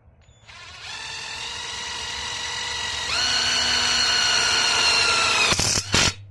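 Electric impact wrench running free with no load: a motor whine that climbs in speed in two steps, then two sharp clacks just before it cuts off.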